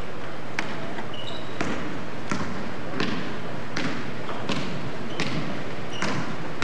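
Basketball being dribbled on a hardwood gym floor, a steady bounce a little more than once a second.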